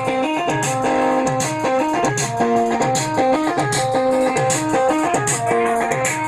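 Amplified dance music played loud through loudspeakers: a plucked electric string instrument plays a quick melody of short stepping notes over a steady beat.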